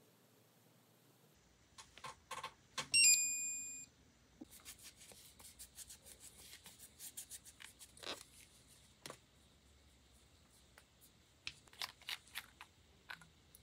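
A gel nail lamp gives a short electronic chime of several quick stepped beeps. Then a cleanser-soaked wipe rubs over a gel-coated nail with a scratchy swishing that takes off the uncured sticky layer. Near the end there are a few sharp clicks as a gel polish bottle is handled and opened.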